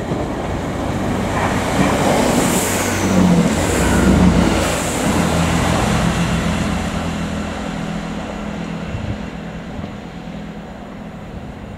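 Class 165 Networker Turbo diesel multiple unit running through the station without stopping. The drone of its underfloor diesel engines and the rumble of its wheels on the rails build to a peak about four seconds in as it passes, then fade as it runs away.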